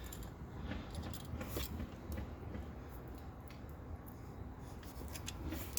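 Faint scattered clicks and scrapes of small metal parts being handled while motor-mount bolts and washers are fitted back, over a low steady room hum.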